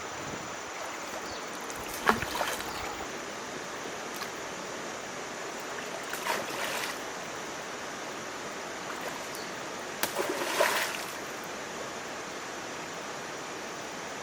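Steady rushing noise of flowing water, broken three times by short, louder splashing sounds about two, six and ten seconds in.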